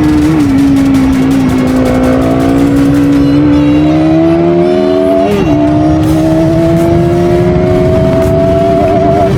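Bajaj Pulsar NS200's single-cylinder engine through its stock exhaust, pulling steadily with its pitch climbing slowly and dropping sharply twice, once about a third of a second in and again about five and a half seconds in, as at gear changes.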